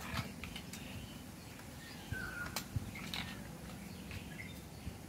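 Faint outdoor ambience with a few short bird chirps and several light clicks of plastic building blocks being handled and pressed together.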